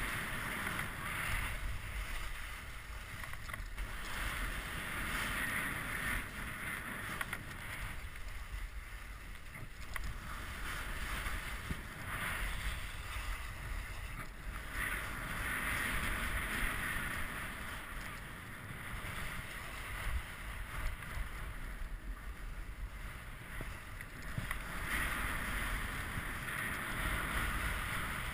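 Skis hissing as they slide and carve over snow, the hiss swelling and fading every few seconds, over a steady low rumble of wind on the microphone.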